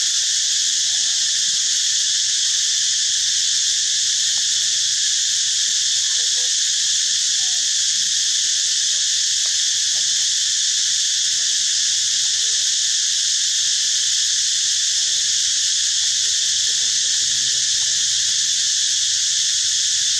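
A steady, high-pitched insect chorus, loud and unchanging.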